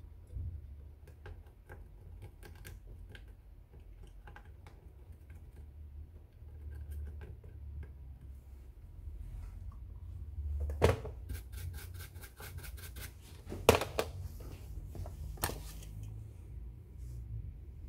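A cotton swab scrubbing the solder side of a TV power board, giving a light scratchy rubbing with scattered small clicks. Around the middle come a few louder sharp knocks, with a quick, evenly spaced run of ticks between the first two.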